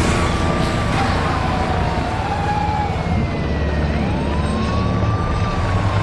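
Siren wailing, slowly rising and falling about every three seconds, over the low rumble of a car engine.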